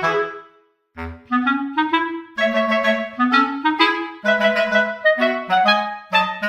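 Background music: a melody of short notes on a clarinet-like woodwind. It breaks off for a moment near the start, then carries on.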